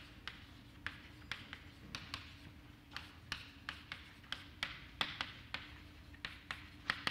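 Chalk writing on a blackboard: short, sharp taps and clicks at an uneven pace, a few a second, as the letters are written.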